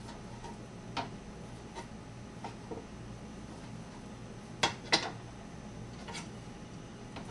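A kitchen knife knocking on a cutting board a handful of times, irregularly, as cooked pork is cut into small pieces. The two loudest knocks come close together a little past halfway, over a steady low hum.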